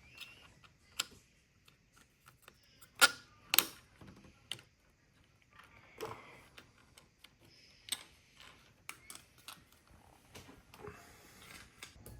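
Plastic parts of a CrunchLabs Lock Box kit clicking and knocking as they are handled and fitted together, with a few separate clacks and two louder ones close together about three seconds in.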